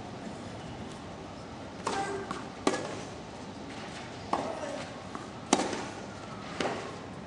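Tennis ball struck with rackets in play: five sharp pops about a second apart, two of them louder than the rest, over a steady background hum.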